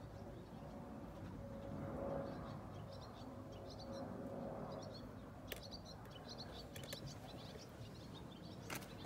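Faint outdoor background noise with a small bird's quick, high chirps, from about two seconds in until near the end. There are also a couple of sharp clicks, one midway and one near the end.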